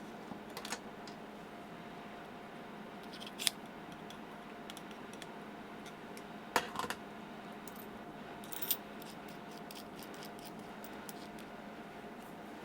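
Scattered sharp clicks and taps of a small metal hand tool working at components on a circuit board, over a faint steady hum.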